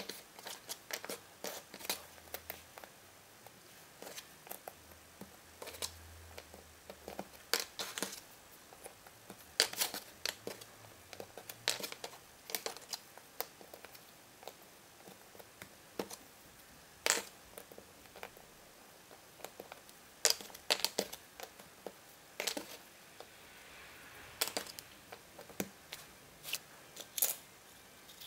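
Cardboard jigsaw puzzle pieces tapping, clicking and sliding on a wooden tabletop as they are handled and pressed into place. The clicks come at an irregular pace with light rustling between them.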